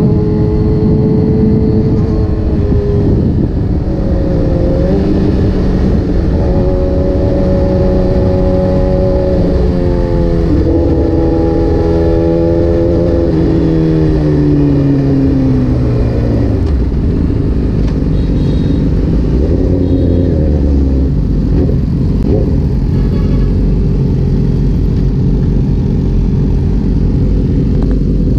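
Kawasaki ZX-10R inline-four engine accelerating through the gears, its pitch climbing and dropping at each shift, then winding down as the bike slows about halfway through, and running steadily at lower revs after that.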